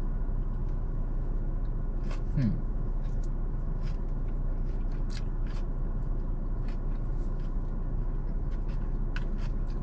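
Eating sounds: scattered small clicks and crunches of salad being chewed and forked, over a steady low hum inside the car. There is a short low murmur from the eater about two and a half seconds in.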